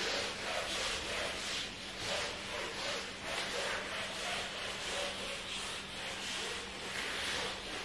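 Mop being scrubbed back and forth across a floor mat: rhythmic swishing strokes, about two a second, over a faint steady hum.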